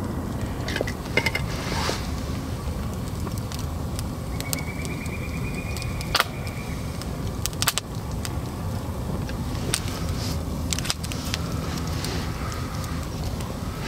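Split firewood burning in a small metal basket brazier, crackling with scattered sharp pops over a steady low rumble. A thin wavering whistle lasts about two seconds near the middle.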